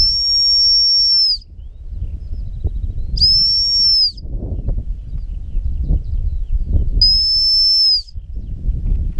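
Gundog whistle blown in three long, steady single blasts, each a high note lasting about a second. These are single-blast stop whistles directing a retrieving dog. Wind rumbles on the microphone underneath.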